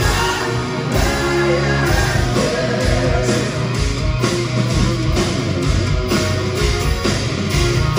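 Hard rock band playing live and loud: electric guitar over bass and drums with a steady beat, heard from within the audience.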